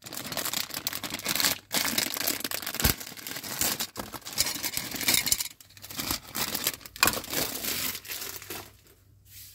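Clear plastic bags crinkling and rustling as they are handled and pulled open around plastic model parts, in several spells broken by short pauses.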